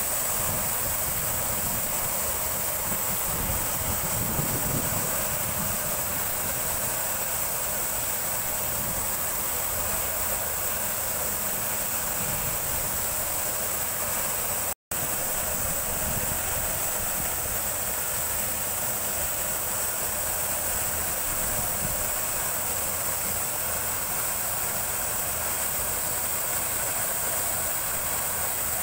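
Steady rushing noise of heavy construction machinery running, a boom concrete pump truck among it, with a constant high hiss over it. The sound drops out for an instant about halfway through.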